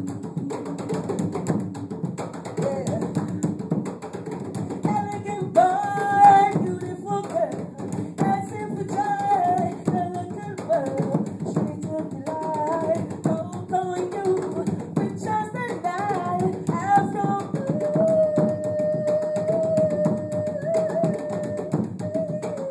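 Djembe-style hand drums playing a steady groove, with a woman singing over them and holding one long note near the end.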